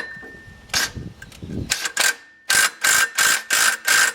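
Impact gun on a 13/16 socket, run in short repeated bursts about three a second, driving a puller bolt against the crankshaft to press the Gator's primary clutch off its tapered crankshaft.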